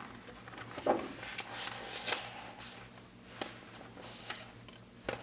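Light rustling and small clicks of an album's cardboard and paper photo cards being handled and sorted.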